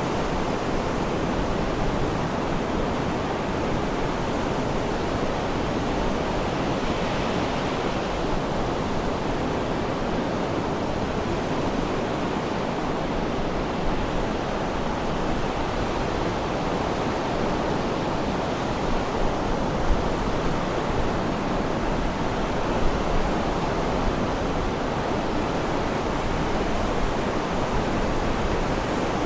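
Sea surf washing in a steady, continuous rush, with no birdsong standing out.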